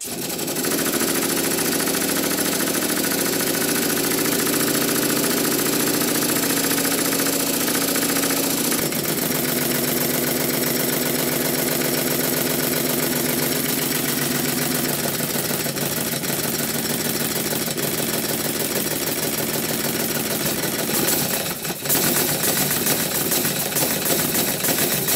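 Stuart Triple model triple-expansion steam engine running: a fast, rhythmic exhaust beat over a steady hiss. Its sound shifts about 9 seconds in and again around 15 seconds as the supply pressure is varied, and the engine responds a little slowly.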